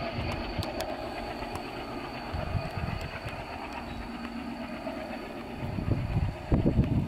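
Diesel-hauled passenger train running past at speed: a steady rushing rumble of wheels on rails, with a few heavy low thumps about midway and again near the end.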